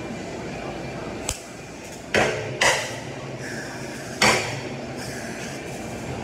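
Three sharp metallic knocks with a short ring, about two seconds in, half a second later and near four seconds, over a steady shop hum.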